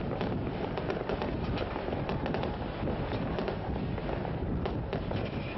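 Distant fireworks crackling and popping: many small sharp bangs in quick, irregular succession over a steady low rumble.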